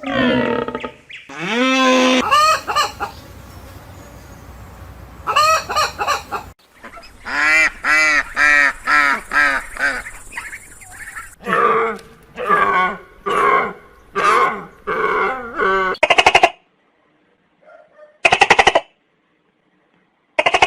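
Poultry calling: runs of short, loud honking calls, several a second, broken by pauses, with two louder single calls near the end.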